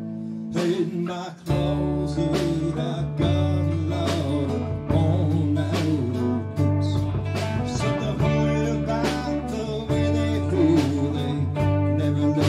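A live band playing an instrumental passage on electric bass, electric guitars and drum kit. A held chord fades at the start, then the band comes back in about half a second in, with the bass line strong from about a second and a half and steady drum hits throughout.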